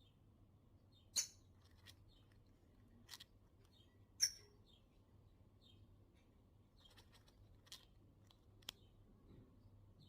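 A pet parrot chirping softly: scattered faint short chirps, with a few sharp, brief, louder peeps, the loudest about a second in and about four seconds in.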